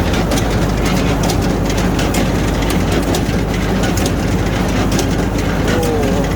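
Straw baler running: a steady heavy engine with frequent sharp clicks and clatter from the baling mechanism.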